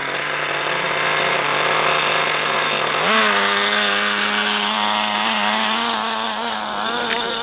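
Small 4cc two-stroke glow engine of a model RC buggy running with a high, buzzy note. It holds a steady speed, is revved up about three seconds in, and then holds at the higher speed.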